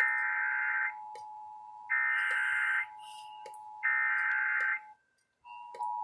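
Emergency Alert System SAME header: three one-second bursts of warbling digital data tones, sent about a second apart, with a steady tone running underneath. After a short break the steady two-tone EAS attention signal begins just before the end.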